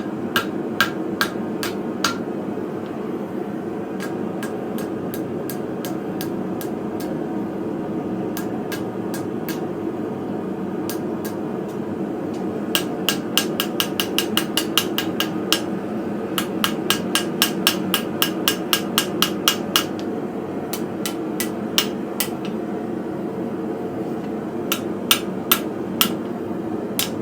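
Hand hammer striking hot steel bar stock in bursts of blows, curving a forged hook; the strikes come fastest, about three or four a second, in the middle of the stretch. A steady hum runs underneath.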